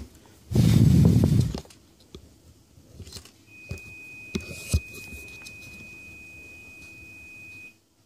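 Handling noise as a wired circuit board is picked up and turned over: a loud rustle about half a second in, then a few light clicks. A steady high-pitched electronic beep starts at about three and a half seconds and cuts off near the end.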